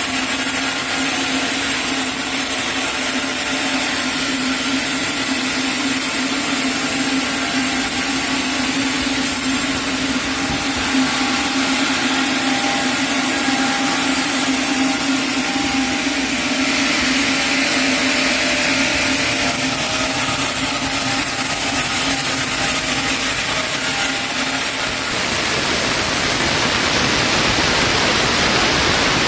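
Sawmill saw cutting through a chinaberry log: a steady, loud sawing noise with a low hum held under it. About 25 seconds in the hum drops away and only an even rushing noise remains.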